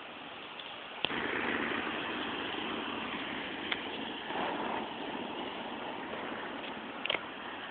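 Steady hiss and hum of highway traffic, getting louder about a second in, with a few sharp clicks, one near the start and a double click near the end.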